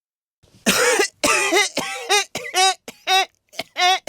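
A person coughing hard in a fit of about eight coughs in quick succession, with the voice sounding through each cough. The coughing starts about half a second in.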